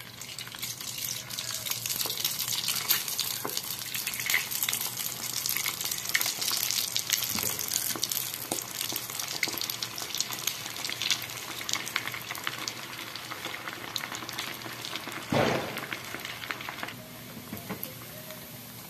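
Kibe (bulgur and ground-beef croquettes) deep-frying in a pot of hot oil: a dense crackling sizzle that starts as they go into the oil, with a brief louder rush about fifteen seconds in, then quieter near the end.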